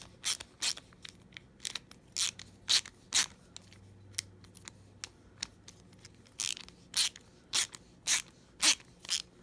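Small ratcheting screwdriver being worked back and forth, its pawl clicking in short sharp bursts about twice a second, thinning out in the middle before picking up again.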